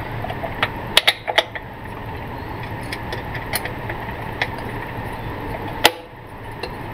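Screwdriver turning a small screw in the plastic back of a digital clamp meter: scattered small clicks and scrapes, a quick cluster of clicks about a second in and a single sharp click near the end, over a steady background hiss.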